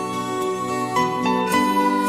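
Instrumental break of a slow Chinese pop ballad, no singing: long held notes, with new notes coming in about a second in and again half a second later.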